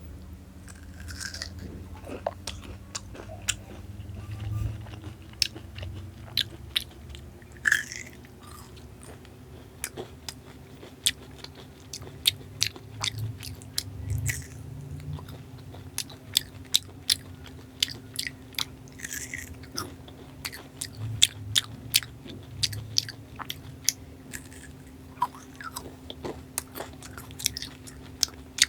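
Close-miked chewing and biting of soft, syrupy Indian sweets, with many sharp wet mouth clicks and smacks, several a second, over a steady low hum.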